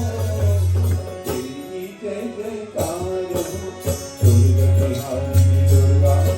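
Devotional Hindu bhajan music: a melody over a deep, steady bass that drops out for a while and comes back strongly about four seconds in.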